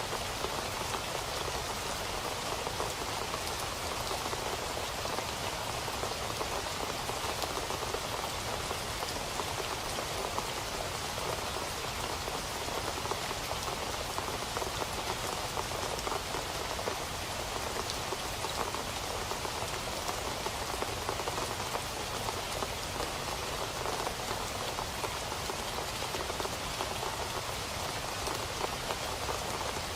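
Steady rain falling, a dense, even patter of drops on a surface with no let-up.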